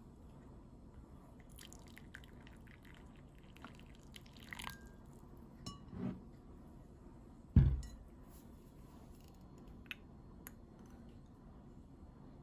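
Small glass bowl and kitchen utensils handled on a cloth-covered table: scattered light clinks and drips, with one dull thump a little past halfway, the glass set down.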